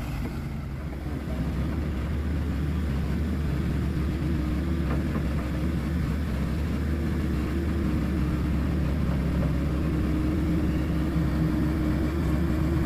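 Diesel truck engine running steadily, a low drone that grows a little louder about a second in and holds on.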